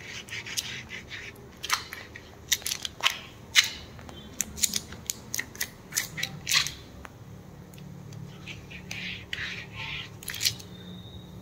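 Irregular sharp clicks and crackles of latex-gloved hands stroking and moulding a freshly applied, wet fiberglass (synthetic) cast. The clicks are densest in the first half and thin out later, over a faint low hum.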